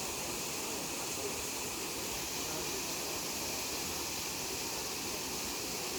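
Steady rushing of a waterfall: an even, unbroken roar of falling water.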